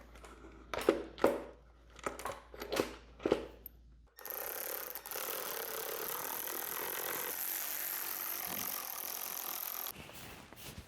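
A few sharp clicks and knocks of parts and tools being handled. Then, about four seconds in, a steady hiss starts and runs for about six seconds before stopping suddenly.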